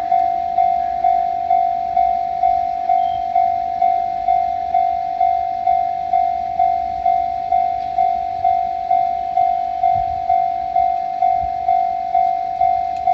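Japanese electronic railroad-crossing bell ringing a single pitched tone over and over, a little over two strikes a second, with each strike fading before the next.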